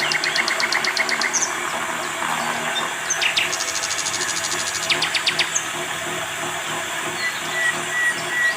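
Small birds singing in rapid trills of quickly repeated high notes, several bursts a few seconds apart, over a steady high hiss of insects.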